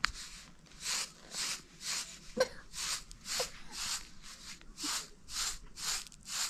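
A steady rhythm of short scraping strokes, about two a second, each a brief hiss. A sharp click comes right at the start and another near the middle.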